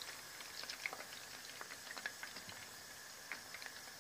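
Hot oil in a karahi bubbling and crackling faintly, with scattered small irregular pops, after a batch of chicken pakoras has been fried in it.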